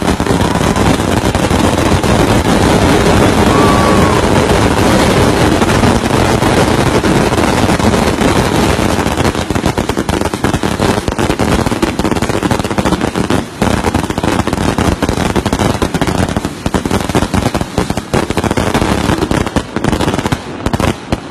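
Firecrackers and fireworks going off in a rapid, unbroken crackle, like machine-gun fire, that breaks into separate sharp cracks with short gaps over the second half.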